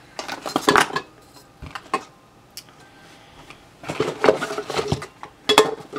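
Empty cosmetic bottles and metal aerosol cans knocking and clinking together as they are rummaged through in a box: clusters of knocks in the first two seconds, a quieter stretch, then more from about four seconds in.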